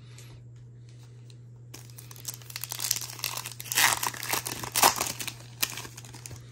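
Plastic-foil wrapper of a Topps Chrome trading card pack crinkling and tearing as it is ripped open by hand. The crackling rustle starts about two seconds in and is loudest in the middle.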